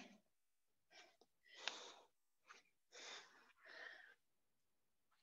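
Faint, hard breathing from a person straining through push-ups: a handful of short, forceful breaths about a second apart.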